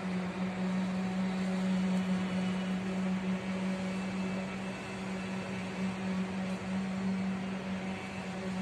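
Steady machine hum on a construction site: one constant low drone that does not change, over a haze of site noise.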